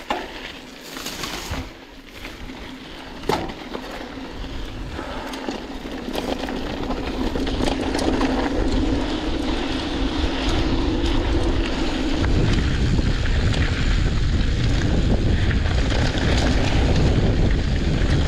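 Mountain bike riding a loose, dusty dirt singletrack: tyres rolling and wind rushing over the camera microphone, with a few sharp knocks from the bike in the first few seconds. The rush grows steadily louder, and about two-thirds of the way through a heavy low wind buffeting sets in.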